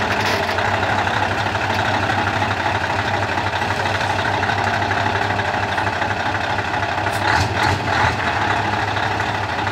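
Scania R500's V8 diesel engine running steadily at low revs as the tractor unit rolls slowly past, with a short burst of rasping noise about seven seconds in.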